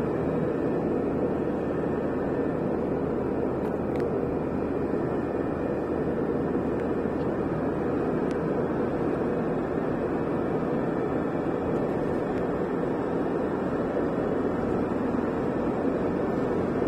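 Steady road and engine noise heard from inside a moving car's cabin at motorway speed, with a couple of faint ticks.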